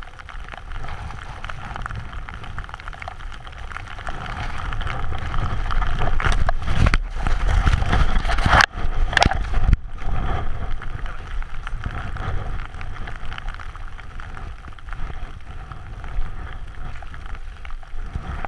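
Wind rushing over an action camera's microphone, with the hiss of riding through deep powder snow. The noise grows louder from about four seconds in, with heavy scuffs and two sudden brief cut-outs around nine to ten seconds in.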